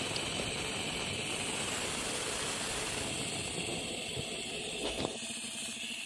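Compressed air hissing steadily out of a half-horsepower MECO air compressor tank through its release valve. About five seconds in, a click and the hiss gives way to a fainter, steady machine hum. This fits the compressor's motor and pump being cut back in by the pressure switch as the tank pressure falls.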